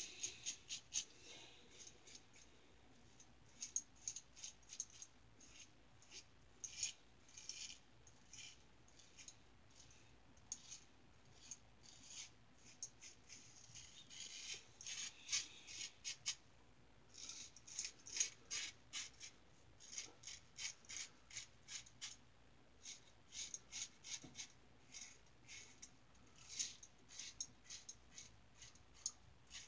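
Gem single-edge blade in a Star Super Six lather-catcher safety razor scraping through lather and stubble in runs of short, quick strokes, with brief pauses between the runs.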